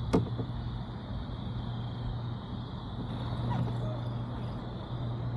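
Steady low background hum with a steady high-pitched tone above it, and one sharp knock just after the start.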